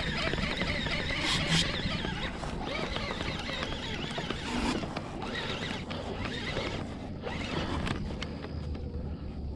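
A baitcasting reel being cranked to wind in line, a fast rasping whir that weakens after about two seconds, mixed with clicks and knocks from handling the rod.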